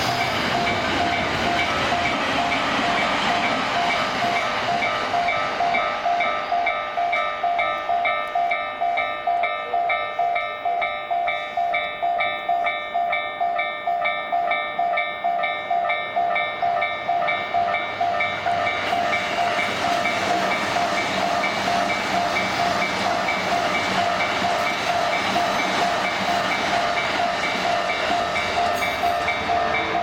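Japanese level crossing warning bells ringing continuously in quick, evenly repeated electronic dings. An electric commuter train passes at the start, its running noise fading over the first few seconds, and another train's noise rises near the end.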